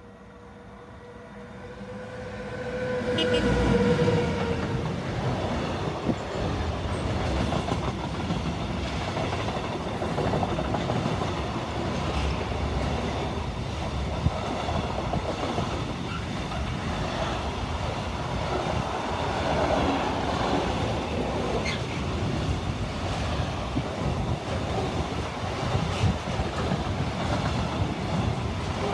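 Electric-hauled intermodal freight train passing close by: it swells in over the first few seconds with a steady whine from the locomotive, then a long run of container and trailer wagons rumbles past with occasional sharp clicks from the wheels.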